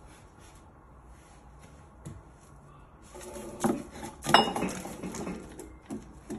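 Heavy cast-iron test weights clanking against each other as one is set down beside another, with two loud metallic clanks about three and a half and four and a half seconds in, the second ringing briefly, then a few lighter knocks.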